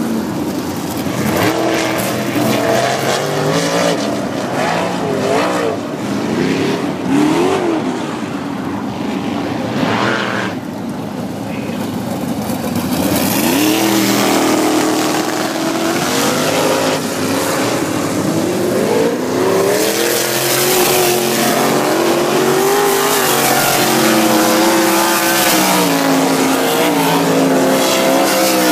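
Winged dirt-track sprint cars' V8 engines, several cars lapping the oval, their pitch rising and falling as they accelerate out of the turns and lift into them. The cars get louder about halfway through as one passes close by.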